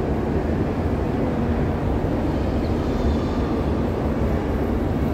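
Steady low rumble of ambient noise in a large, hard-surfaced indoor hall.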